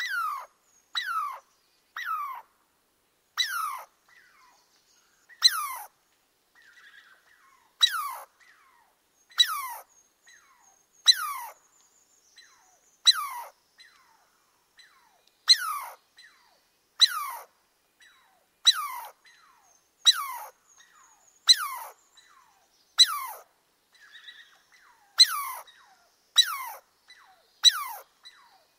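A squirrel calling over and over, about one call every second and a half. Each call is a short, sharp cry that slides down in pitch.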